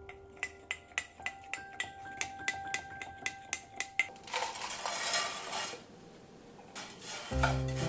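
A metal spoon clinks against the side of a glass Pyrex measuring cup while stirring a sauce, about three clinks a second for four seconds. A short hiss follows.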